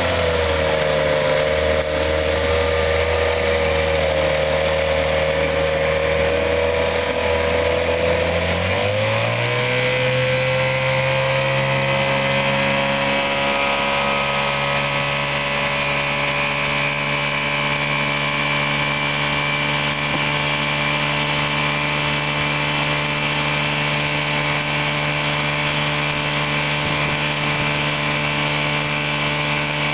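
1973 Chrysler 8 hp two-stroke outboard motor running under way. Its engine speed rises about nine seconds in, then holds steady at the higher pitch.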